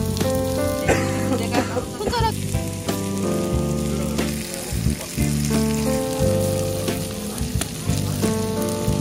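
Pork belly sizzling on a hot griddle, a steady crackling hiss, under background music with held notes.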